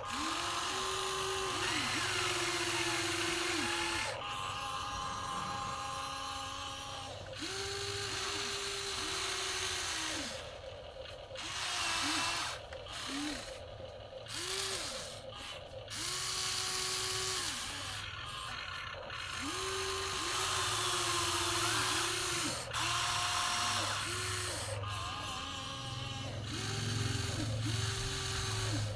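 Electric motors of a radio-controlled toy excavator whining as its functions are worked. The whine starts and stops many times, its pitch rising quickly to a steady note and falling away each time, with short pauses between moves.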